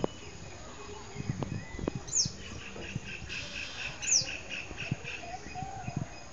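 Birds chirping: short, sharp, high notes falling in pitch about two and four seconds in, with a rapid pulsed trill between them and a few softer lower calls near the end. Scattered faint low knocks sound beneath.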